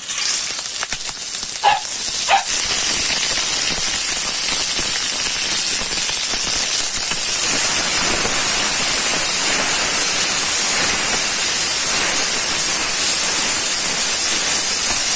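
Maize kernels sizzling steadily in hot oil as they are stir-fried in a wok; the sizzle starts suddenly, and two short knocks stand out about two seconds in.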